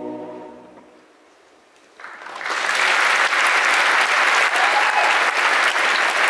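The final held chord of a large men's chorus fades out within the first second. After about a second of quiet, a large audience starts applauding, and the applause swells quickly to a loud, steady level.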